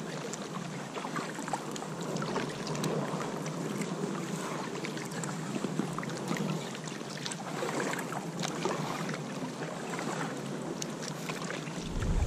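Kayak paddles dipping and splashing in calm river water on an Intex K2 Challenger inflatable kayak, with many small drips and splashes from the blades. Near the end, a sudden loud rumble of wind on the microphone.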